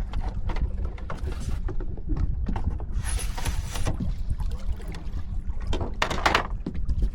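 Small fishing boat knocking and scraping against rocks, a run of irregular knocks and bumps over a steady low wind rumble on the microphone.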